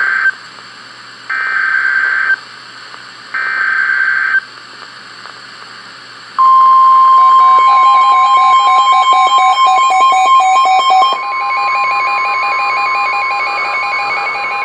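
Emergency Alert System tones on NOAA Weather Radio: three one-second bursts of the warbling SAME digital header, then the steady 1050 Hz warning alarm tone starting about six seconds in, the signal that a warning follows. A second, stepped beeping alarm pattern overlaps the steady tone.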